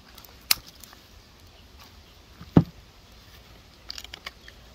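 Coconut crab claw shell being handled while the meat is eaten: a sharp click, a louder dull knock a little past midway, and a quick cluster of small clicks near the end.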